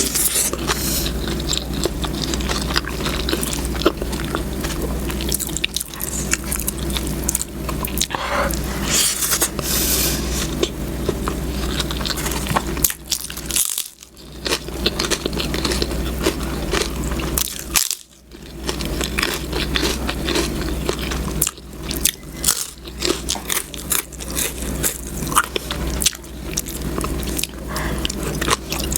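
Close-miked eating sounds: biting and chewing with crunches and wet clicks, over a steady low hum. The sound drops out briefly twice near the middle.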